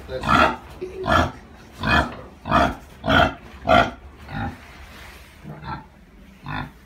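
Pig grunting loudly and over and over, a little under two grunts a second, the grunts growing weaker and sparser after about four seconds.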